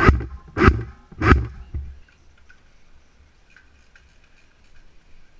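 M4 airsoft rifle fired three times in semi-auto, sharp single shots about two thirds of a second apart, followed by a few faint ticks.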